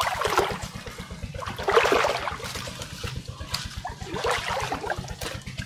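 Pond water splashing and sloshing in three surges, near the start, about two seconds in and about four seconds in, over a low steady throb.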